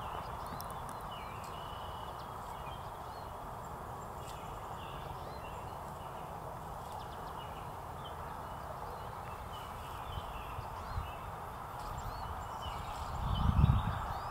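Woodland ambience: a steady background hiss with faint, scattered bird chirps, and a low thump near the end.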